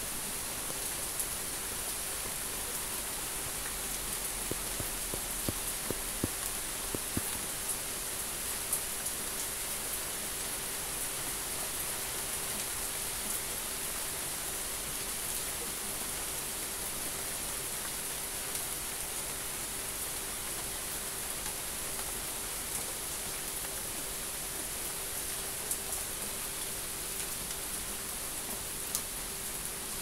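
Steady rain falling, an even hiss with scattered sharp drop ticks, more of them in the first several seconds. A faint steady hum runs underneath.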